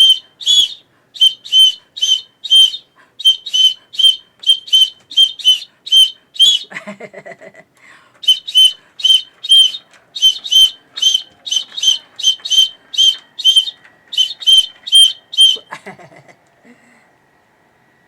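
A whistle blown in quick short high-pitched toots, about two or three a second. It pauses for about a second and a half near the middle and stops a couple of seconds before the end.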